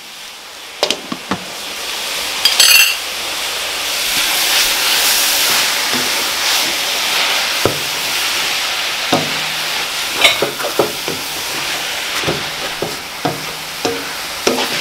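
Shredded collard greens sizzling in a metal pot while a wooden spatula stirs them, with scrapes and knocks of the spatula against the pot every second or two. The sizzle grows louder over the first few seconds, and there is a short clatter about two and a half seconds in.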